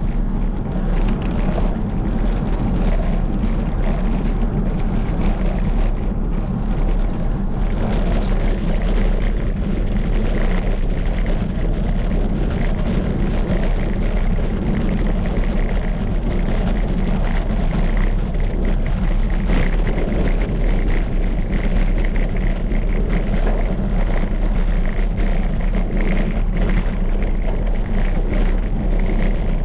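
Wind buffeting the microphone during a bicycle ride, a steady low rumble.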